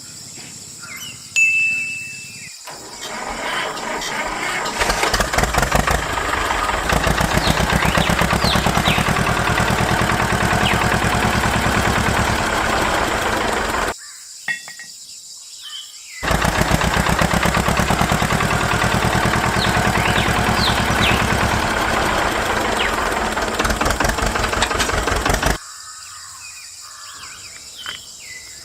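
A small motor running in two long runs, with a fast, even whirring rhythm. The first run builds up over a few seconds, then it stops for about two seconds and starts again, cutting off near the end.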